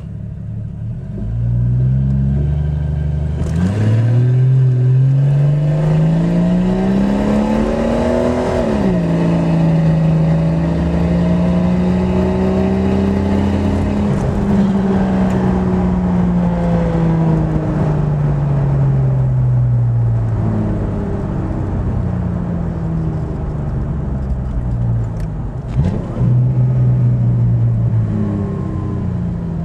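1997 Jeep Cherokee's 4.0-litre inline-six with a straight-pipe exhaust, heard from inside the cab during a hard 0-60 run. The engine note climbs steadily from about three seconds in, drops sharply at an upshift, climbs again more gently, then falls away slowly as the Jeep slows, with a short rev blip near the end.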